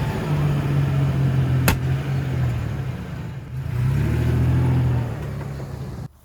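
A motor running with a steady hum, its pitch dipping briefly around midway and then coming back. One sharp click about a second and a half in, and the sound cuts off abruptly near the end.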